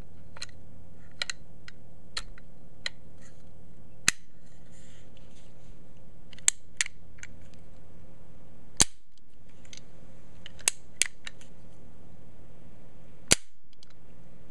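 Action of a zinc-alloy Denix replica Colt 1873 Single Action Army revolver being worked by hand, the hammer and cylinder clicking. A string of sharp metallic clicks, with about seven louder snaps spaced a second or two apart.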